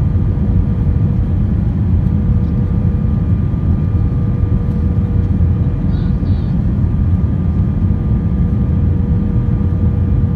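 Steady cabin noise of an Airbus A320-family jet airliner on approach: a constant low rumble of engines and airflow with a steady hum running through it.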